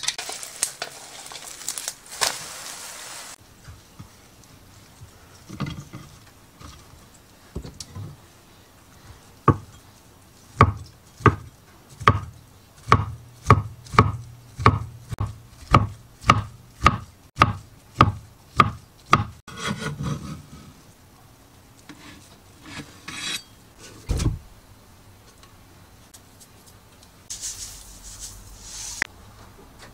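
A chef's knife chopping through a rolled egg sheet onto a wooden cutting board, a steady run of sharp knocks about two a second. Before it, a brief sizzle of the egg in a nonstick pan; near the end, a short rattle of sesame seeds poured onto rice.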